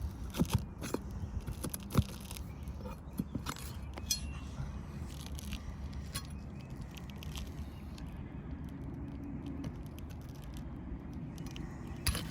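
Scattered sharp metal clicks and taps of a flat bar prying nails out of asphalt roof shingles, the strongest about two seconds in, over a steady low hum.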